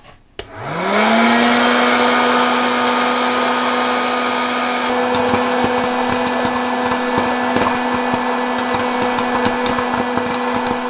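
Electric hot-air popcorn maker switched on: its fan motor spins up with a quickly rising whine, then runs steadily and loudly with a rush of hot air. From about halfway in, kernels start popping, heard as scattered sharp clicks over the hum.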